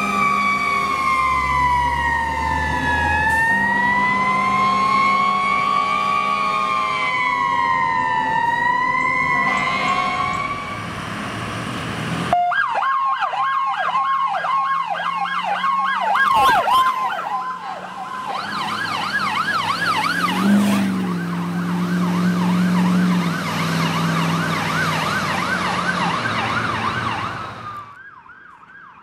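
Fire apparatus sirens: first a slow wail rising and falling over a few seconds at a time, then, after a cut, a fast yelp warbling several times a second, joined about two-thirds in by a low steady tone for a few seconds.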